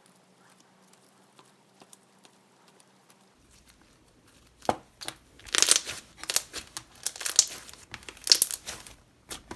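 Thick slime being stretched, pressed and pulled apart, giving sticky crackling and tearing sounds. It is faint and sparse for the first few seconds, then loud, irregular crackles start about five seconds in.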